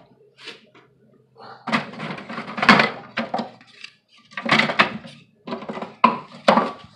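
Wooden deep frames knocking and clattering against one another and against the wooden swarm-trap box as they are dropped back into it. The knocks come in three quick clusters with short pauses between them.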